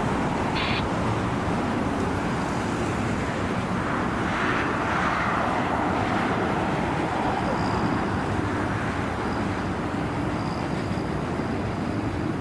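Jet airliner engine noise heard steadily, swelling a little about four to five seconds in.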